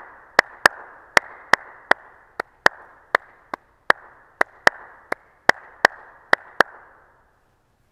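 Two pencils struck together like claves, tapping out the clave rhythm: three clicks, then two, repeated over and over. Each click rings on in the echo of a large hall, and the tapping stops about six and a half seconds in.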